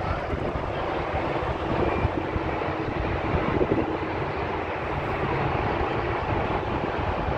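Steady noise of busy traffic on a multi-lane highway: many cars, vans and buses passing together.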